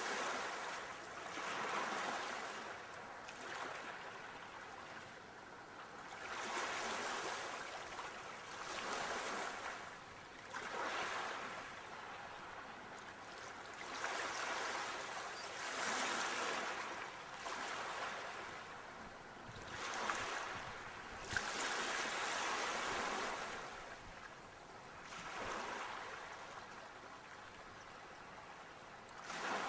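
Ocean waves breaking and washing up the shore in a steady series of swells, each surge of hiss rising and falling away every two to three seconds.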